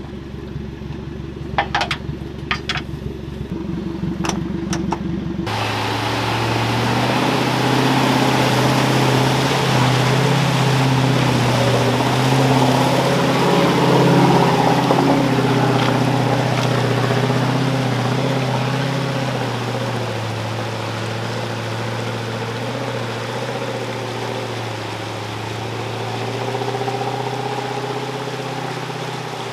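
A few sharp metallic clicks and knocks of hand work on the suspension over an idling engine, then a V8 Land Rover Discovery 1 wading up a fast-flowing flooded river. Its engine runs steadily under the rush of water churning around the wheels, loudest about halfway through.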